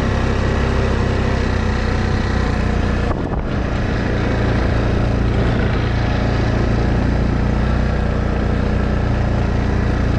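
ATV engine running steadily under way, with a brief dip in the sound about three seconds in before it carries on.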